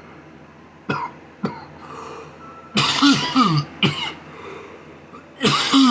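A man coughing hard in two fits after inhaling from a THC vape pen. Two short clicks come before the coughing.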